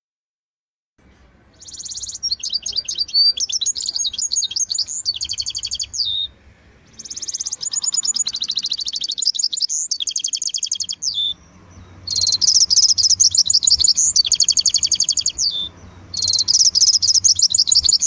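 A small finch singing in long, fast, high-pitched trilled phrases of about two to four seconds each, four phrases with short breaks between them, starting after about a second and a half of silence.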